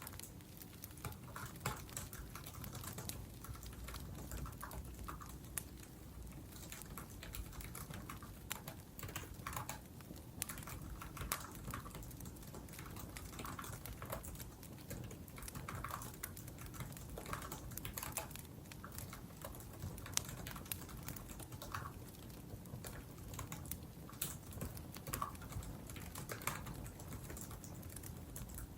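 Typing on a laptop keyboard: quick, irregular key clicks with short pauses, over the low, steady sound of a wood fire burning.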